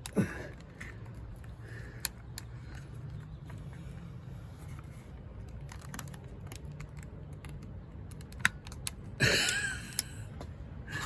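Scattered small clicks and scratches of a straightened paper clip probing the release hole of a Eufy video doorbell, with a louder scraping rustle about nine seconds in.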